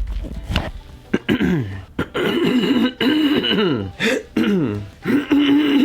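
A person clearing their throat again and again, each voiced throat-clear sliding down in pitch, starting about a second in.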